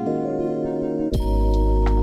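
Background music led by keyboard chords, with a deep bass layer coming in about a second in.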